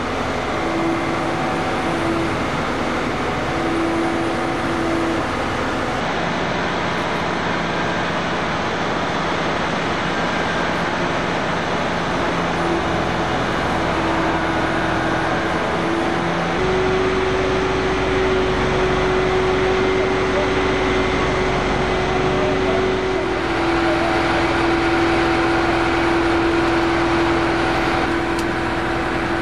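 Heavy vehicle engines running steadily with a droning hum. The pitch steps up about sixteen seconds in, when a deeper rumble joins it, and drops back about seven seconds later.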